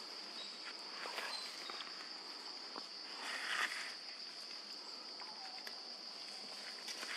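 Steady high-pitched insect drone, with soft rustling in dry leaf litter and a few light clicks, the loudest rustle about halfway through.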